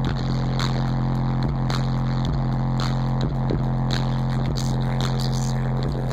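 Music played loud through a car stereo in the cabin, with a strong, steady low bass note from a CT Sounds Meso subwoofer in a center-console box and a sharp beat a little over once a second.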